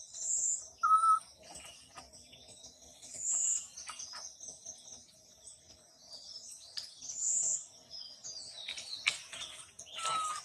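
Birds chirping and calling, over a steady high drone of insects. A high call repeats about every four seconds, and a short clear whistled note sounds about a second in.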